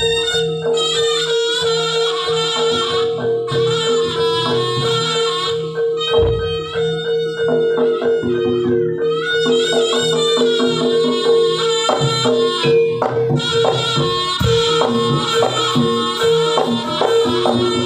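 Jaranan accompaniment music: a wavering reed-wind melody over a held drone note and gamelan-style struck percussion, playing continuously.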